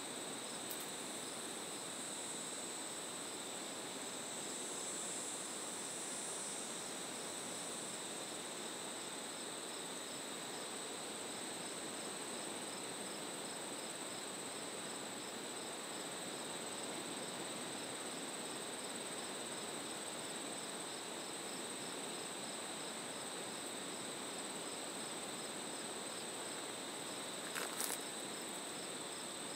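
Crickets trilling steadily in a late-summer insect chorus, with a fainter regular pulsing chirp over a soft background hiss. A couple of brief sharp clicks come near the end.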